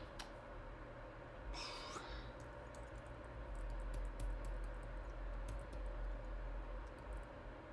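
Faint, quick clicking of a computer mouse scroll wheel as a web page is scrolled, over a steady low electrical hum. A brief hiss comes about two seconds in.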